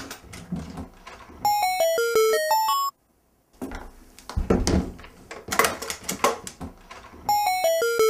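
A short bell-like chime jingle, a quick run of clear notes falling then rising, plays twice. It is spliced between bits of wooden trunks being handled, with knocks and a heavier thump about four and a half seconds in. The sound cuts off abruptly into brief silences.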